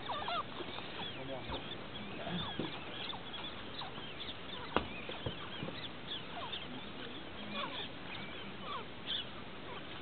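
Many short bird chirps and calls overlapping in the background, with one sharp click about five seconds in.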